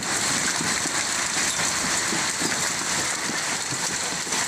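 A heavy fall of large hailstones striking the ground, a steady dense patter of many small impacts.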